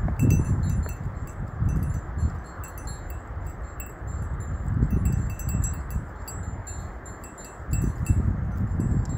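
Light, scattered tinkling of chimes or small bells over gusts of wind buffeting the microphone.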